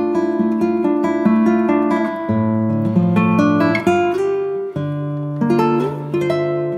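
Background music: acoustic guitar playing picked and strummed chords.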